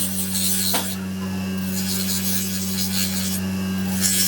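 A small electric motor running steadily with a low, even hum and a high hiss that rises and falls.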